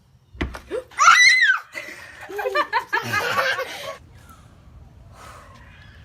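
Laughter with high squeals, in bursts from about half a second in until about four seconds in.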